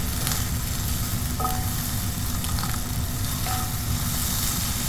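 Tuna stuffing sizzling in a sauté pan while it is stirred, with short light scrapes about once a second over a steady hiss and a low hum underneath.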